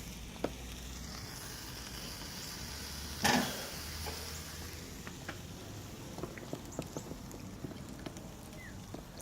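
Chicken sizzling on a grill over a hickory wood fire: a steady hiss with scattered small crackles and pops, and one louder knock about three seconds in.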